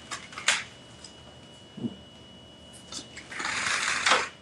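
Playing cards being handled on a table: a couple of sharp card slaps about half a second in, a dull knock near two seconds, then a short rustling slide of cards near the end that finishes in a slap.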